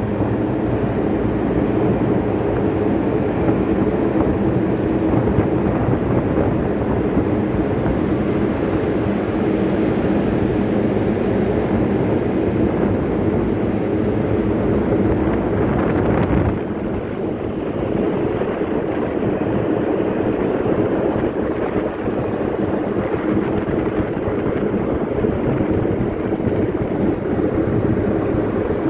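Steady drone of ship machinery heard on the open deck: several low hum tones under a constant rushing noise, with wind on the microphone. Just past halfway the higher hiss drops away and the sound gets briefly quieter.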